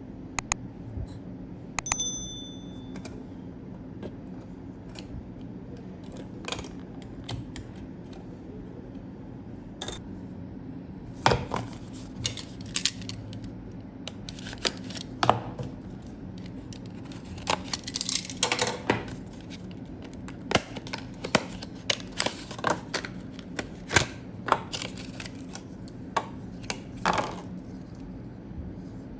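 Hard parts and packaging being handled during a PC build: irregular clicks, taps and knocks, denser in the second half, over a steady low hum. A short metallic ring about two seconds in, like a small metal part or screw striking something.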